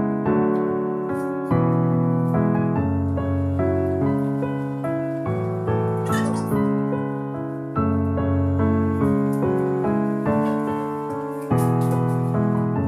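Background piano music: notes and chords struck and left to ring, with a new phrase starting louder a few times.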